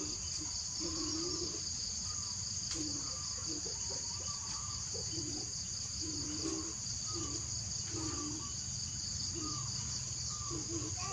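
Steady, high-pitched chorus of insects. Short, soft low sounds repeat about once a second underneath it.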